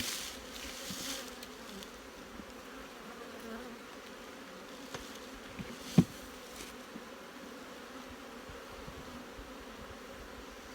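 Honey bees buzzing steadily around an opened hive, with some rustling in the first second and one short, sharp loud sound about six seconds in.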